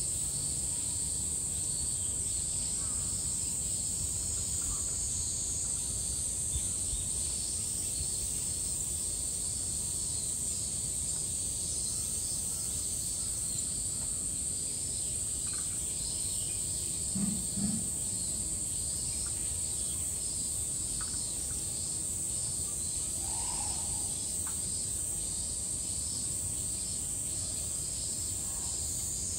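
Cicadas shrilling in a steady, high chorus, with a faster pulsing insect call beneath it. Two short low sounds a little past halfway through.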